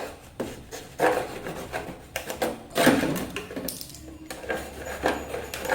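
A sharp knife piercing and cutting through a thin plastic bottle, in irregular scraping strokes, the loudest about three seconds in.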